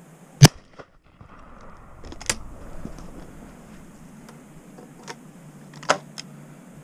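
A single loud shot from an over-and-under shotgun, a Miroku MK60, about half a second in. Two quieter sharp cracks follow, about two and six seconds in.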